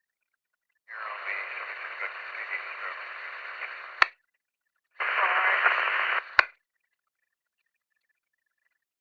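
Police radio: two transmissions of static with no clear words, the first about three seconds long and the second about a second and a half. Each ends in a sharp click as the squelch closes.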